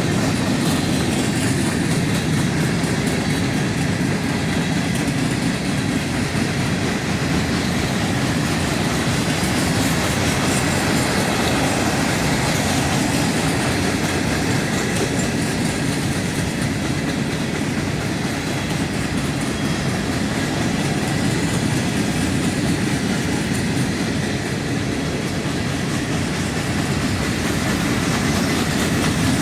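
Train cars rolling steadily past on the tracks, a continuous noise of wheels on rail with no break or change.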